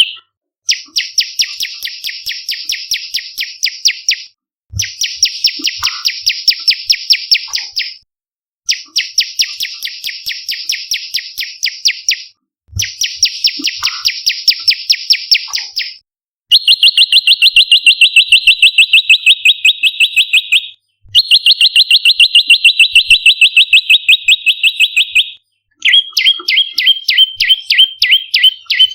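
Bar-winged prinia song: rapid trills of repeated sharp chirps in bouts of about three to four seconds, with brief breaks between them, seven bouts in all. The later bouts are lower and steadier in pitch.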